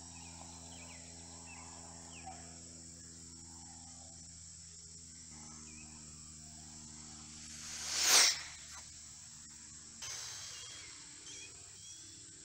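A 1/24-scale RC top fuel drag car with a 9500 kV 1410 brushless motor on a 3S battery passing at speed about eight seconds in: a brief high-pitched whine that swells quickly and is gone within a second. Steady insect chirring and a low hum lie underneath.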